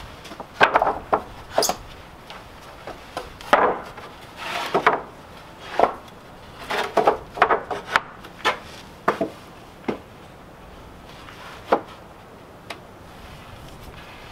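Wooden planks knocking and scraping against one another as they are laid side by side on sawhorses: a run of irregular knocks and short rubs for about ten seconds, then two last single knocks.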